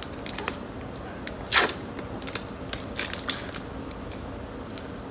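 Plastic wrapper of a jerky stick crinkling and being torn open by hand: scattered small crackles and clicks, with a sharper rustle about a second and a half in and a few more around three seconds.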